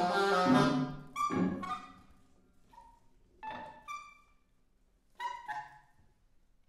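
Contemporary chamber ensemble music: a loud dense chord, then a string of short, separate pitched notes that grow sparser and quieter, stopping about six seconds in.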